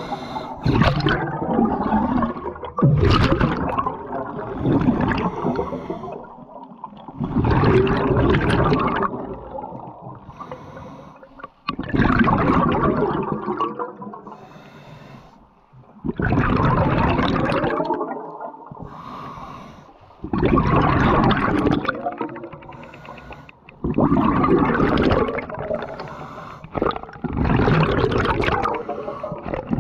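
Scuba diver breathing through a regulator underwater: a gush of exhaled bubbles about every four seconds, with quieter gaps between breaths.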